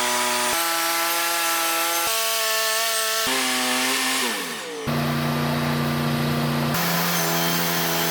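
Wood-Mizer LT40 band sawmill sawing a southern yellow pine log. It comes as short back-to-back segments that switch abruptly every second or two, each a steady machine hum at a different pitch. In one segment the pitch slides down just before the next begins.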